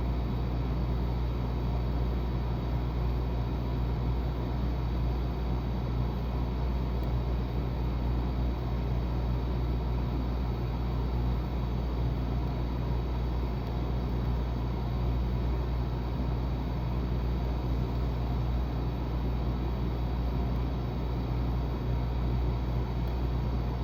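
A steady low mechanical hum with an even background noise that does not change.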